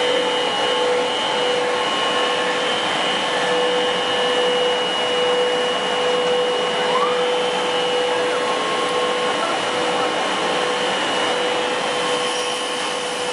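Twin-screw extruder pelletizing line running: a steady, even machine drone with two constant tones, one middling and one high-pitched whine.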